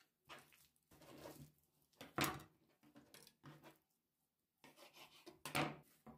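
Two steel kitchen knife blades scraped against each other, one knife honed on the other. A few scraping strokes, loudest about two seconds in and again near the end, with quieter scrapes and taps between.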